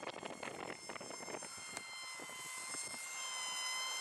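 Small brushed motor and propeller of a 1S foam FPV flying wing in flight: a steady high-pitched whine with even overtones, over a crackling hiss.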